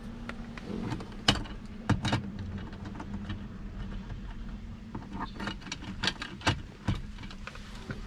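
Scattered plastic clicks and knocks as a handheld OBD scan tool's cable is handled and its connector plugged into the diagnostic port under the dashboard, a few sharp ones near the start and a cluster in the last few seconds, over a steady low hum.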